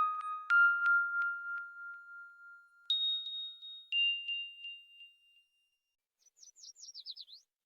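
Honor MagicOS 9 phone system tones played in turn: the ringing tail of a bell-like chime, then a two-note ding falling in pitch about three seconds in, and near the end a quick run of short falling chirps.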